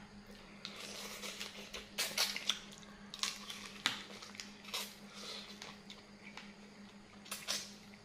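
Close-up mouth sounds of eating blue swimming crab: a series of short wet slurps, sucks and smacks as the meat is pulled from the shell and chewed.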